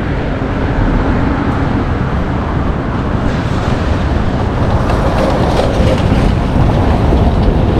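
Street traffic: vehicle engines running and passing close by, a steady, loud wash of road noise with an engine tone held for the first couple of seconds.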